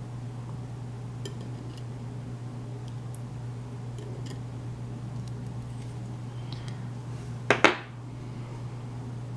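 Light metallic clicks and clinks of small lock parts being handled, with a louder double clack about seven and a half seconds in, over a steady low hum.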